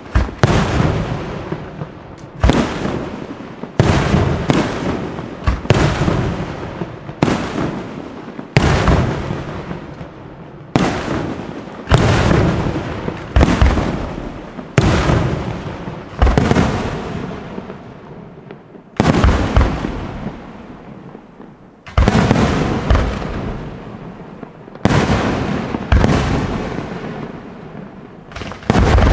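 Fireworks display: aerial shells bursting in a steady string, a sharp bang about every second or so, each fading away before the next.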